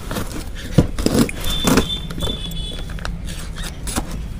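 Cardboard shipping box being cut and pulled open with a snap-off utility knife: the blade scraping through packing tape and the flaps tearing and rustling, in several short sharp scrapes and clicks.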